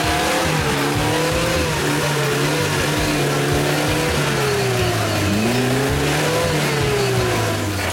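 Off-road vehicle engine running under load, its pitch rising and falling repeatedly as the throttle is worked, with a deep dip and climb back up about five seconds in.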